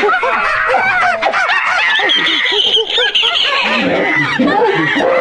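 A dense chorus of many animals calling at once: short, overlapping calls that each rise and fall in pitch.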